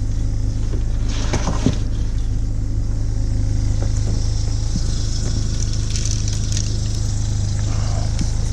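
Steady low rumble and hum of a car on the road, with no change in level.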